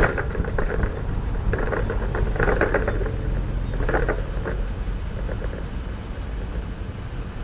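Ford shuttle bus running along, a steady low engine and road rumble with a few short bursts of clatter in the first half.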